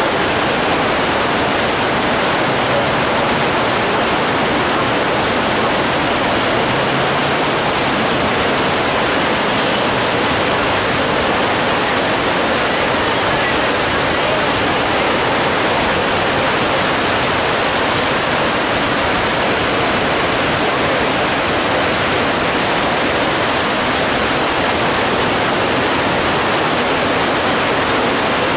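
Storm-swollen creek in flood, rushing loud and steady, with muddy water pouring out of a concrete culvert into the stream.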